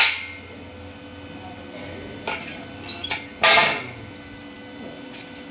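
A couple of sharp metallic clicks, then one short rasping crackle about three and a half seconds in, from a stick-welding electrode being tapped against a steel tube to strike an arc.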